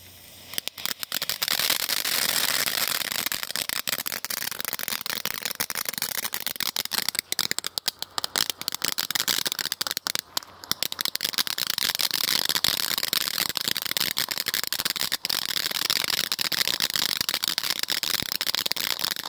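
Funke gold chrysanthemum F2 ground fountain burning: a loud, steady hiss thick with rapid crackling. It flares up about half a second in and cuts off abruptly at the very end as the fountain burns out.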